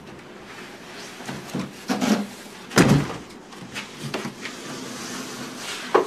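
Large cardboard shipping carton being pulled up off a portable air conditioner and laid down on the floor: cardboard scraping and rustling with several knocks, and a loud thump about three seconds in.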